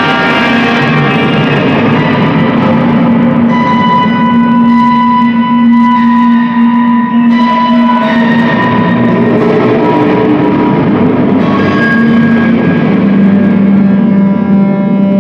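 Live experimental music of layered, sustained tones that hold and shift pitch every few seconds, with a low held tone swelling near the end.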